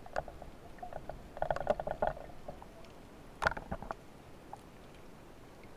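Underwater clicks and knocks from spearfishing gear being handled, heard through the camera housing. A quick run of clicks comes about one and a half seconds in, then a single sharper knock about three and a half seconds in, over a faint steady underwater hiss.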